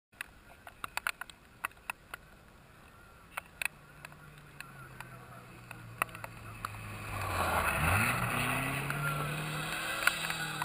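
Rally car engine on a gravel stage, heard from the roadside, coming closer and getting louder to a peak about eight seconds in. Its pitch climbs and drops with gear changes. A few sharp ticks sound in the first few seconds.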